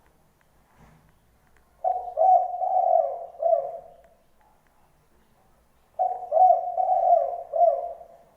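A dove cooing: two phrases of several low coos each, about two seconds long, the first starting near two seconds in and the second about six seconds in.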